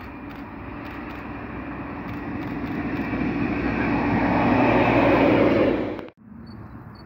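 Yellow rail track-maintenance vehicle approaching along the rails, its engine and wheel noise growing steadily louder, then cutting off suddenly about six seconds in.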